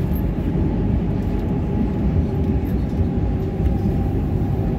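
Madrid Metro Serie 7000 train running through a tunnel, heard from inside the carriage: a steady low rumble with no change in level.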